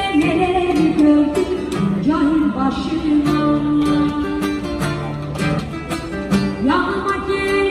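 Classical acoustic guitar played in a folk-song accompaniment, plucked and strummed chords changing every second or so, with a woman's singing voice over it.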